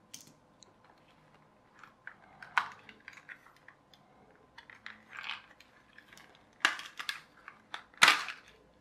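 Scattered plastic clicks and knocks as a toy RC car's chassis is handled and its plastic body shell pried away from it, with a sharp snap about eight seconds in.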